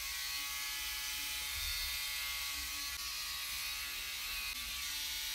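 Small battery-powered facial hair remover running against the skin of the upper lip: a steady electric buzz.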